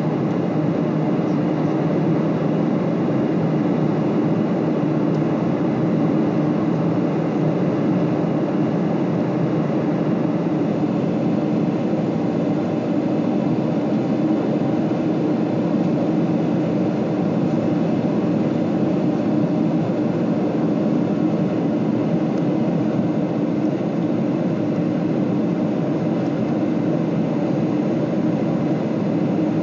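Steady cabin noise inside a Boeing 747 in flight: jet engine and airflow noise heard through the fuselage as an even, unchanging rush, strongest low down, with a few faint steady tones.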